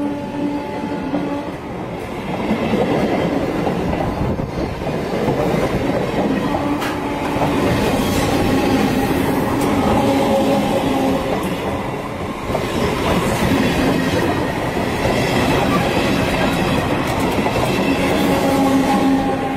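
Passenger train coaches passing at very close range: steady noise of wheels and bogies running on the rails.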